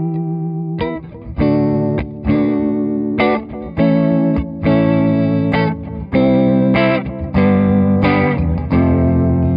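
A 2000 PRS McCarty electric guitar, played clean through an RFO Waterfall four-phase vibe pedal on its vibrato setting with the speed turned up, then through an Echo Tour delay into a Tyler amp. A run of struck chords rings out with a pitch-wobbling, Leslie-like vibrato.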